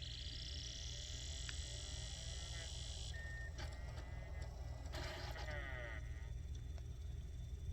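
Portable DVD player's disc drive spinning up and reading a DVD: a faint high whine rises for about three seconds and stops suddenly, followed by fainter whirring, over a steady low hum.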